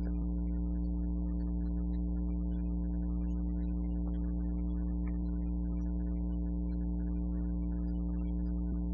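A steady low hum that does not change at all, with no other sound.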